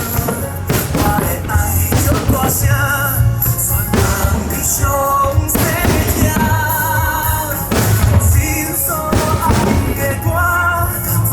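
A pop song with a singer's wavering, held notes over drums and a steady bass, with a few sharp hits cutting through.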